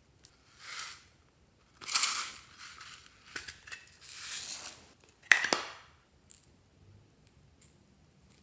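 Slime being squished and folded by hand: about five short squishing pushes, the loudest a little past five seconds in, then only faint clicks.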